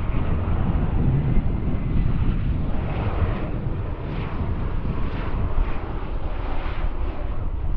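Twin-engine Embraer E-Jet airliner passing low on its landing approach, its jet engines running at approach power and growing louder from about three seconds in, with wind rumbling on the microphone.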